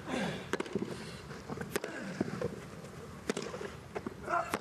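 Tennis rally on a grass court: racket strings striking the ball in sharp knocks, one every second or so as the players trade shots, over a hushed crowd.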